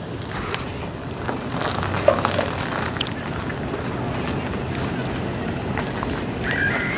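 Steady low outdoor background rumble with wind on the microphone, with a few faint clicks while someone eats between bites, and a short high whistle near the end.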